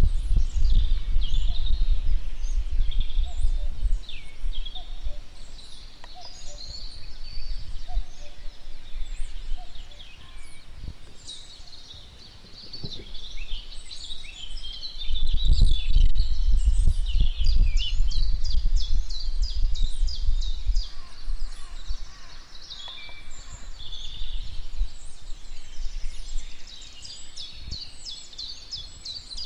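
Outdoor birdsong from several birds chirping and calling, with a fast run of repeated notes a little past halfway. Wind buffets the microphone with a low rumble near the start and again around the middle.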